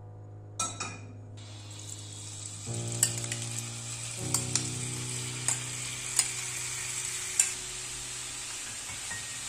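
Food sizzling in a hot frying pan, starting with a sudden loud hiss about half a second in as it meets the hot fat, then a steady sizzle. A utensil clicks against the pan several times while stirring.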